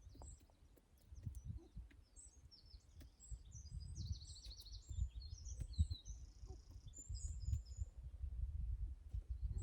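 Small birds chirping and twittering in short high phrases, with a quick trill about four seconds in, over a louder low, uneven rumbling noise.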